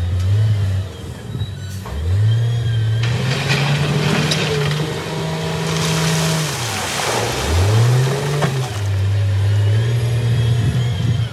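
Wheel loader's diesel engine revving up and down under load, climbing sharply twice (about two seconds in and again after seven) as it shoves its bucket into a pile of crushed rock. Rocks grind and rush under the bucket through the middle.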